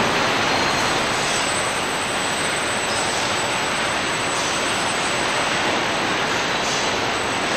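Steady, even rushing noise of car-body paint-shop machinery, the drying-oven air blowers and body conveyors, with a faint thin high whine on top.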